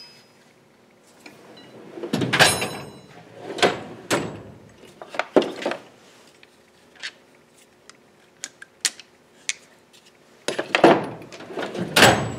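Steel tool-chest drawers sliding open and shut, with metal ratchets, wrenches and sockets clinking as they are sorted through by hand. Scattered rattles and light clicks, then two louder clatters of drawers closing near the end.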